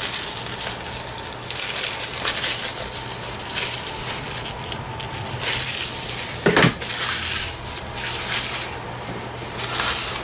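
A plastic Blu-ray case and a paper insert stuck inside it being pried and peeled apart: scratchy rustling and scraping that swells and fades several times, with one sharp click a little past the middle.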